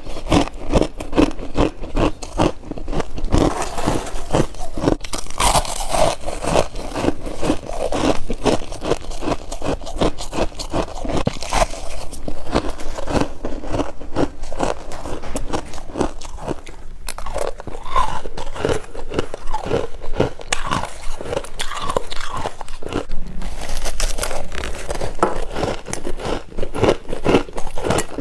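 Freezer frost being bitten and chewed close to the microphone: a continuous run of crisp crunches.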